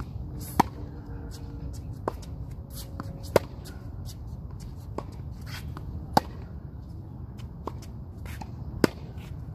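Tennis balls struck by racquets in a baseline rally: four loud, sharp pops about three seconds apart from the nearer player's shots, with fainter pops between them from the other player's hits. A steady low rumble lies underneath.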